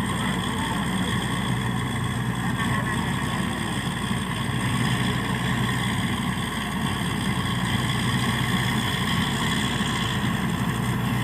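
Borewell drilling rig's engine running steadily at a constant speed, a continuous even drone with no change in pitch.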